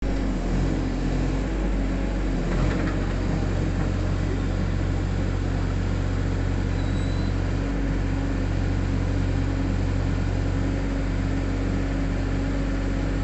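JCB mini excavator's diesel engine running steadily as it works its boom.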